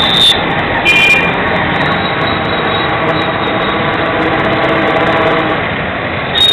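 Steady din of street traffic in a busy market lane: motorcycles and other vehicles running. Two short high-pitched tones sound near the start and about a second in.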